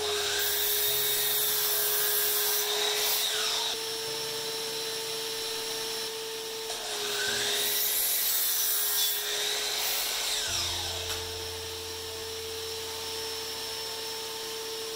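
DeWalt miter saw crosscutting a wooden 2x4 twice: the motor runs up and the blade bites through the wood for about three seconds, then the pitch falls as the blade winds down, with the second cut starting about seven seconds in.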